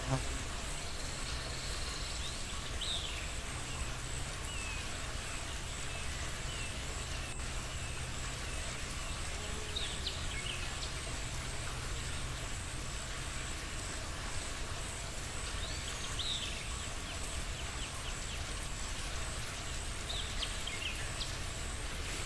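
Steady low background hum with a faint constant high whine. Four brief, faint high chirps come at intervals of several seconds.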